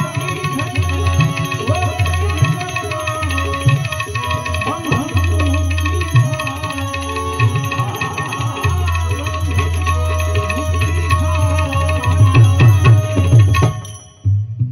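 Live Gujarati bhajan music: a man singing over harmonium, tabla, clashing hand cymbals (manjira) and a keyed banjo. The music cuts off suddenly about a second before the end.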